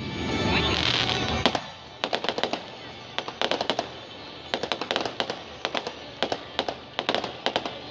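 Fireworks: a hissing rush for the first second and a half, then short rapid runs of sharp crackling pops, several clusters a second apart.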